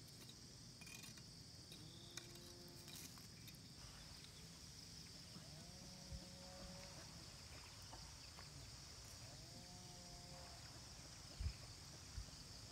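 Faint, steady high-pitched drone of insects, with a few faint drawn-out calls about a second long and two dull thumps near the end.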